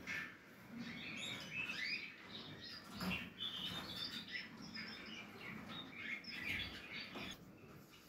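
Portuguese Harlequin canary nestlings chirping, a dense stream of short, high, squeaky begging calls. A few soft bumps sound from the nest.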